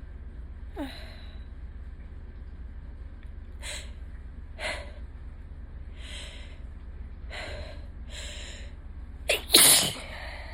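A person's allergy sneeze, the loudest sound, near the end, coming after a run of five short, breathy breaths about a second apart as it builds. A steady low hum lies under it all.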